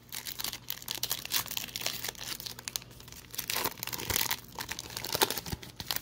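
Foil trading-card pack wrapper crinkling as it is torn open and peeled back off the cards, in a run of irregular crackles.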